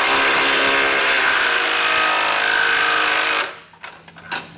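Cordless Milwaukee FUEL stubby impact wrench with an 18 mm socket running steadily for about three and a half seconds as it spins off an 18 mm bumper-beam nut, then stopping. A couple of light clicks follow near the end.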